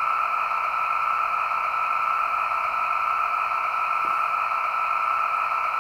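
Sound decoder of a Märklin model diesel locomotive playing its idling engine sound through the model's small speaker: a steady, hissing whine.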